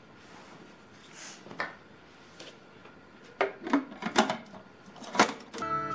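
Clear plastic bowl of a Philips HR7310 food processor being handled and fitted on its base: scattered sharp plastic clicks and knocks, a cluster of louder ones in the second half. The motor is not running. Music starts just before the end.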